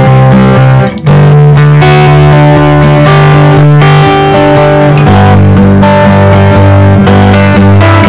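Loud background music led by guitar over a low bass line that changes pitch twice, with a brief drop in level about a second in.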